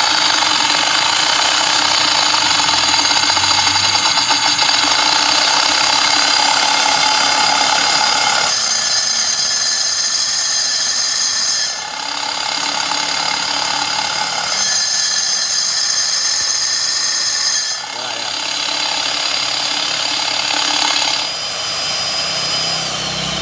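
Electric diamond core drill on a stand running and cutting a core into a concrete floor, with compressed air blown down the bit: a steady motor whine with grinding. The sound shifts in level and tone several times, and near the end the high whine drops in pitch.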